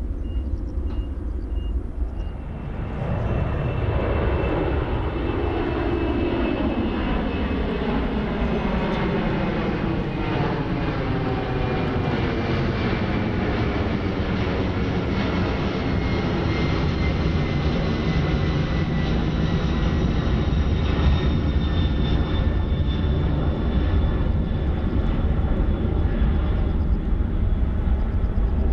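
Jet airliner engines during takeoff and climb-out: the engine noise swells about two and a half seconds in and stays loud, with a high whine that slowly falls in pitch as the aircraft passes.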